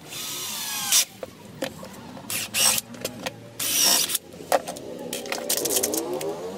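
Cordless drill driving a screw into wood, its whine falling in pitch under load for about a second and stopping sharply. Then come small clicks and rattles of screws handled in a plastic box, and near the end a softer whirr that dips and rises in pitch.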